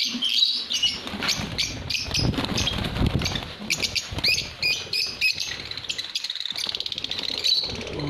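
A flock of lovebirds chattering, with many sharp, rapid chirps overlapping. A low rustle, strongest about two to three seconds in, runs beneath it.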